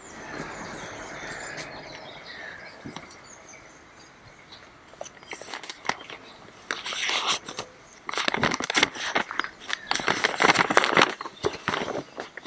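A sheet of paper being unfolded and handled, making a run of crinkling rustles that starts about five seconds in and grows louder toward the end.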